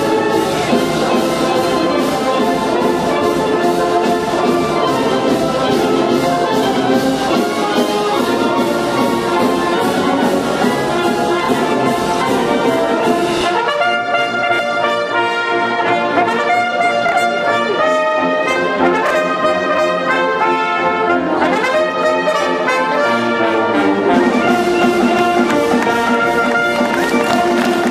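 Italian wind band (banda) of brass and woodwinds playing a symphonic piece. The full band plays with a heavy bass until a little past halfway, when the sound suddenly thins to lighter, clearer wind chords without the bass. The low brass comes back in near the end.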